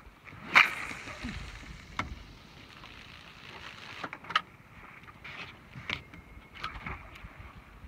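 A popper lure being cast and worked with a spinning rod: a sharp swish about half a second in, with line hissing off the reel as it fades, a click, then a run of short sharp noises as the lure is jerked back across the water.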